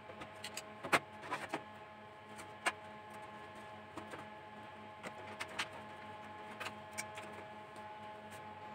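Scattered clicks, taps and metal knocks of a desktop power supply unit being unscrewed and pulled out of a steel PC case, its cables rattling as it is lifted. The loudest knock comes about a second in, another near the three-second mark, with lighter taps spread through the rest.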